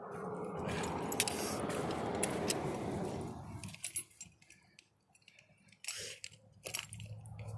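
Steel trap chain and a Victor No. 4 foothold trap clinking and jingling as they are handled in gloved hands. A rustling noise fills the first three seconds, and after that come scattered sharp clinks with quiet gaps between them.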